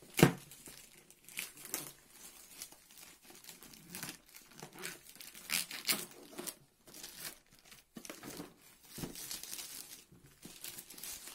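Packaging being handled and opened, with irregular crinkling, rustling and tearing and a sharp, loud crackle just after the start.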